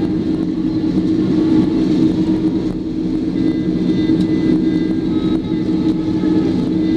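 Airbus A330's jet engines at taxi power heard inside the cabin: a steady hum with a strong low drone and faint high whining tones above it.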